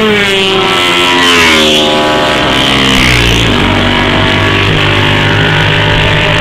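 Racing motorcycle engines passing at speed, their pitch falling as one bike goes by. After a few seconds another bike's engine is heard changing gear as it comes through the bend.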